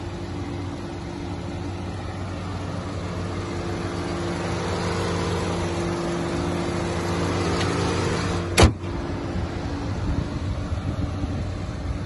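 Mercedes E250 CGI's 1.8-litre turbocharged four-cylinder petrol engine idling steadily, getting louder as it is approached with the bonnet open. About two-thirds of the way through, the bonnet slams shut with one loud bang, and the idle then sounds quieter.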